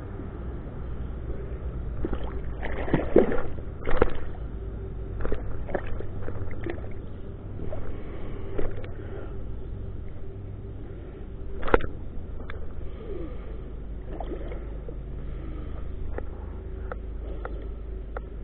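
Steady rush of river water with scattered splashes and sloshing in the shallows, the loudest about three to four seconds in and again near twelve seconds.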